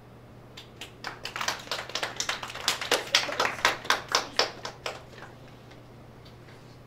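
A small group of people clapping, starting about half a second in, building over the next second or so and dying away after about five seconds.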